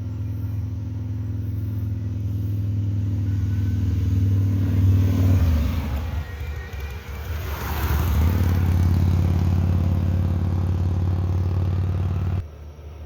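A motor vehicle's engine running with a steady low hum, with a louder rush of a vehicle passing on the road about halfway through; the engine sound stops suddenly near the end.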